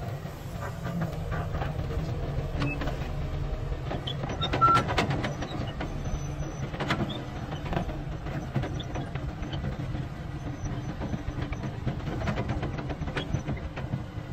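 Crawler excavator's diesel engine running steadily, with scattered metallic clanks and knocks from the bucket and boom linkage as it digs mud, the loudest about four and a half seconds in.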